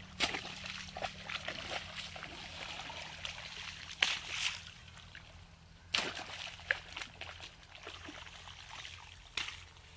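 A mattock chopping into wet soil and mud is packed into a breach in an irrigation channel bank to close the water off from a flooded field. Trickling water runs throughout, broken by a few sharp blows: near the start, then about 4, 6 and 9.5 seconds in.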